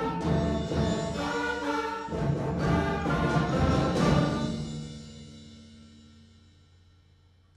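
School concert band of first-time players (clarinets, saxophone, tubas and double bass) playing, closing on a held chord that fades away over the last three seconds.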